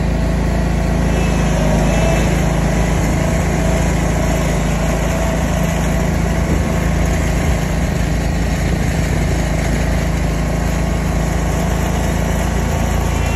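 Lawn mower engine running loud and steady at one constant speed.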